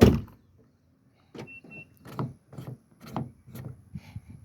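A 2013 Nissan Leaf door shutting with a heavy thump, then a run of clicks and knocks as the repaired exterior door handle and latch are worked. Two short beeps come about a second and a half in.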